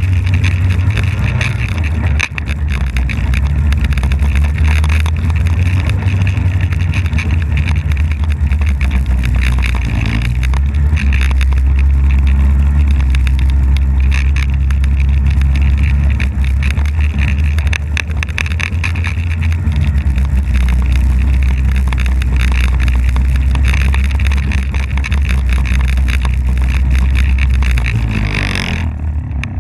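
Polaris snowmobile engine running as the sled travels over snow, its engine note shifting now and then with the throttle. Near the end the engine eases off and the sound drops away.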